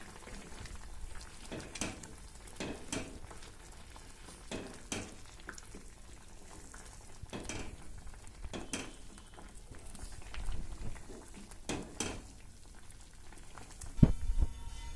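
A wooden spatula stirring egg through boiling soup in a metal pan, with irregular scraping strokes against the pan over the bubbling. A sharp thump comes near the end.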